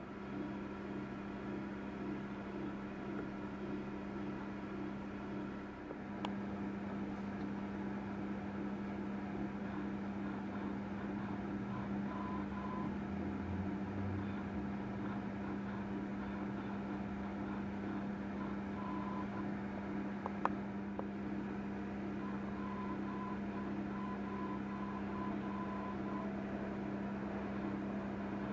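Steady mechanical hum of a running kitchen appliance, with a couple of sharp clicks.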